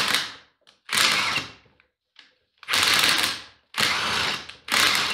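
Two cordless high-torque impact wrenches, a Kobalt 24V XTR and a Ridgid 18V Octane, coupled socket to socket and hammering against each other. They run in repeated bursts of under a second with short pauses between them, about five times.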